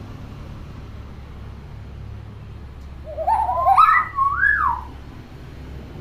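A hill myna gives a warbling whistled call about three seconds in, lasting roughly two seconds and sliding up and down in pitch.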